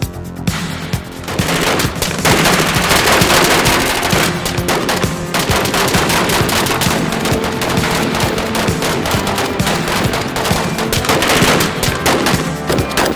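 Rapid automatic gunfire, many shots in quick succession, starting about a second and a half in, over background music.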